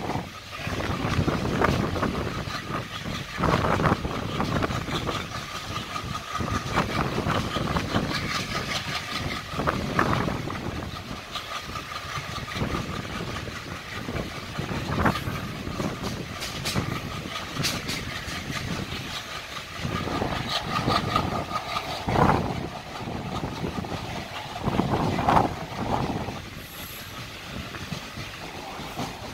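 Passenger train coach running at speed along the track: a steady rumble and rattle of wheels on rails, heard at an open coach door. A faint high whine comes and goes.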